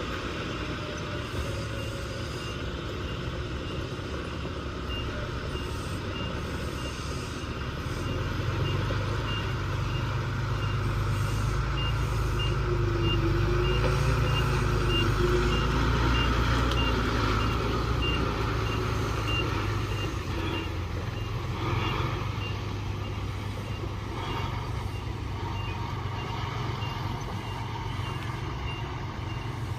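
Diesel heavy-equipment engine running under load with a reversing alarm beeping at a steady rate. The engine grows louder about a third of the way in, then eases back.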